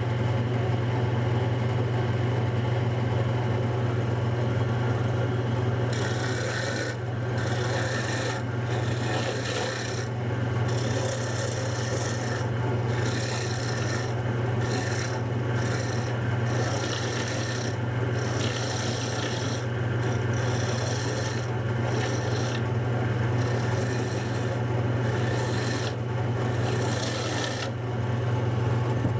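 Wood lathe motor running with a steady hum while a tool is held against the spinning wood, rasping in repeated short passes that start about six seconds in.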